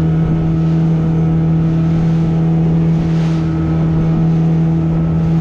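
Motorboat engine running steadily under way, a constant hum at an even pitch that does not change.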